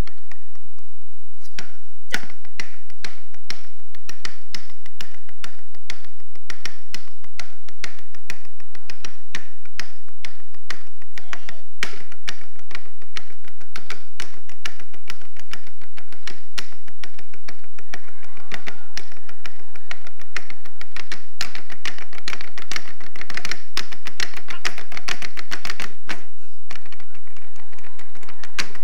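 Several meat cleavers drummed rapidly on wooden chopping boards as kitchen percussion, a dense clatter of chopping strokes in fast rhythms. It starts about two seconds in and breaks off briefly near the end.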